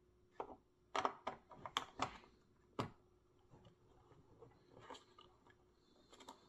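Sharp clicks and knocks of puzzle box pieces being handled and fitted together: a quick cluster of about six in the first three seconds, then fainter scattered taps.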